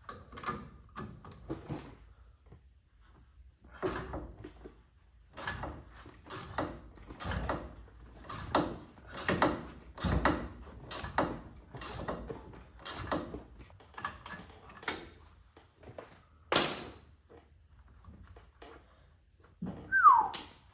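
Hand tools working a hot, freshly welded nut loose from the bottom of a car's front shock absorber rod: a steady run of metal clicks and knocks, about two a second, then a single sharper knock. Near the end comes a short falling squeak and a loud knock.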